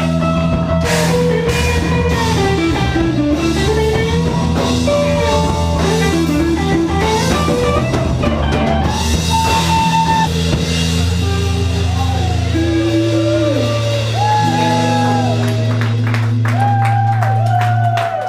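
Rock music with drums, guitar and a singing voice, stopping near the end.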